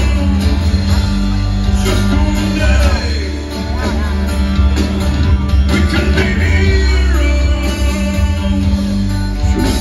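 A live rock band playing, with a voice singing over guitar and sustained low bass notes, heard from within the audience in a hall.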